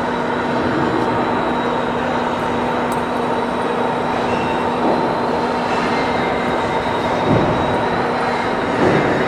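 Steady mechanical hum and rumble with a few constant tones, like machinery or electrical equipment running.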